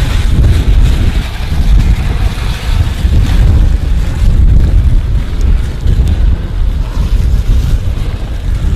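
Wind buffeting the microphone: a loud, continuous low rumble with a fainter hiss above it.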